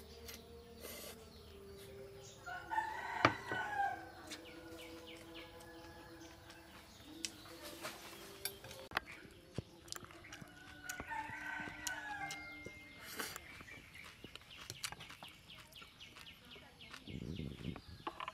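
A rooster crowing twice, about three seconds in and again around eleven seconds, with scattered light clicks in between.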